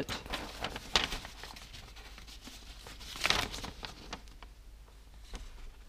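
Clear plastic bags of model-kit parts crinkling as they are picked up and handled, with a sharp crackle about a second in and a louder stretch of crinkling a little after three seconds.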